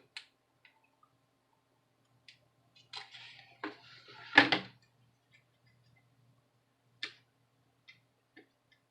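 Small plastic clicks and handling noise as the laptop fan's cable connector is pushed into its socket on the motherboard, with one sharp click about four and a half seconds in and a few faint ticks after.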